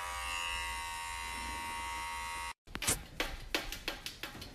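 Small electric hair clippers buzzing steadily on a cat's fur, a constant hum with a high whine, until it cuts off abruptly about two and a half seconds in. A quick, regular beat of sharp taps, about three a second, follows.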